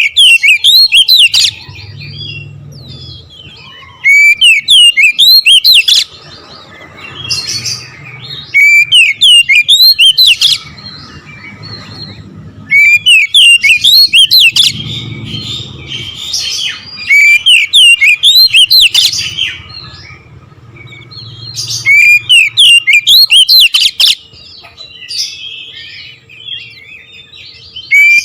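Oriental magpie-robin (kacer) singing: loud bursts of fast, rolling, sweeping notes about every four seconds, with quieter song in between.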